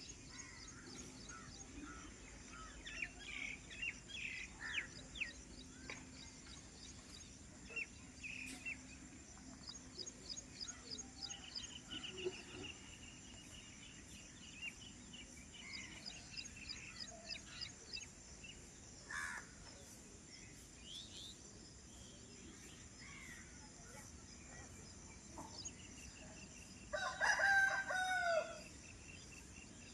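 Small birds chirping and trilling throughout, with a rooster crowing once near the end, the loudest sound.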